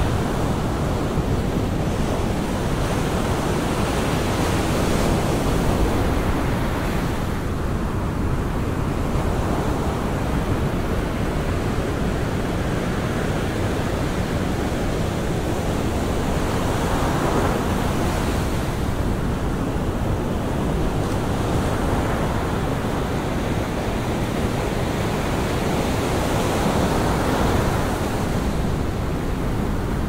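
Ocean surf breaking and washing up a sandy beach: a steady rush of foaming water that swells each time a wave breaks, about every several seconds.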